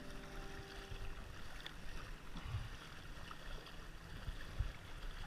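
Kayak paddle strokes splashing and dripping in lake water alongside a plastic kayak, with a few low thumps, the loudest near the end.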